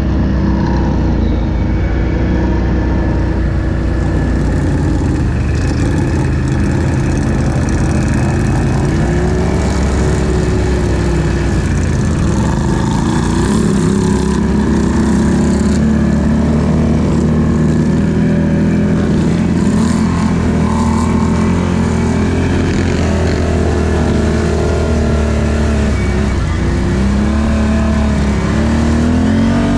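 ATV engine running close to the microphone under load while riding, its pitch rising and falling several times as the throttle opens and closes.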